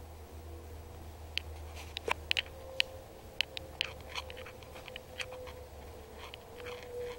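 Irregular sharp clicks and ticks, starting about a second and a half in, over a steady low hum and a faint steady tone.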